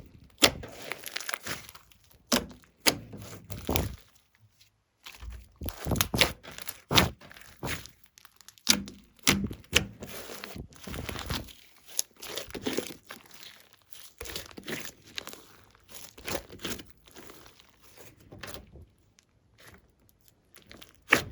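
Glossy slime being squished, stretched and pressed by hand, giving irregular sharp popping clicks and short squelches with brief pauses between them.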